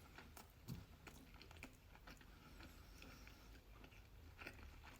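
Faint close-miked chewing of a sushi roll dipped in soy sauce and spicy mayo, heard as scattered soft mouth clicks.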